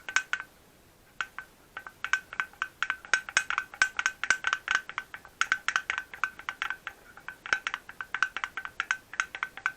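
Izh Jupiter 5 piston rocked by hand in its cylinder, clinking against the bore with a ringing metallic note. It knocks in a quick run, stops briefly, then goes on at about three to four knocks a second. The knocking shows the excess play of this left piston, the one that rang in the running engine.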